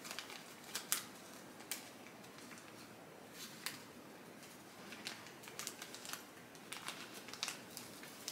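Thin plastic zip-top bag crinkling in short crackles as it is worked over monstera leaves, a few scattered at first and more frequent in the last few seconds.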